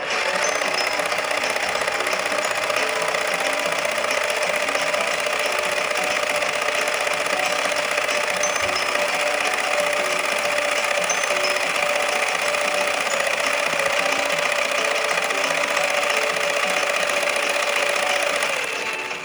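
Small electric motor and gearbox of a remote-control Brum toy car whirring steadily at full speed, starting abruptly; the whine drops slightly just before it stops near the end.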